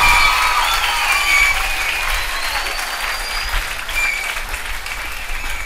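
Audience clapping after a song, the applause starting loud and gradually dying down.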